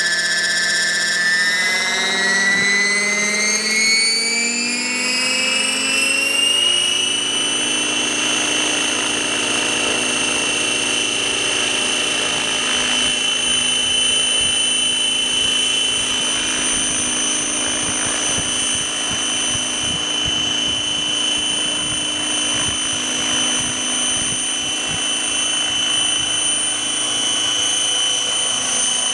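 MD500 helicopter's turbine and rotor spooling up: a high whine rises in pitch over the first several seconds as the rotor comes up to speed, then holds steady as the helicopter lifts into a hover.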